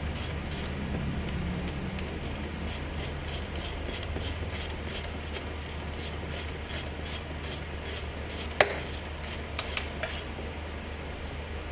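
Ratchet socket wrench clicking in a steady run, about four clicks a second, as bolts are run in. A sharp metallic clack about eight and a half seconds in, over a steady low hum.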